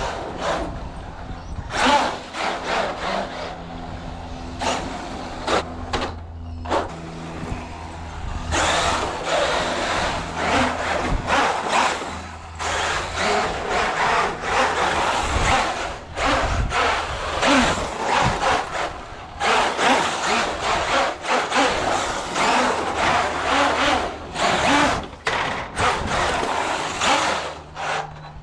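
Electric RC truck driving across a wooden plank deck, its tyres rumbling and clattering over the boards, louder and busier from about eight seconds in.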